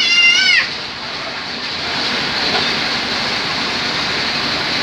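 Excavator's diesel engine running steadily, heard as an even rumbling noise at a sand-loading site.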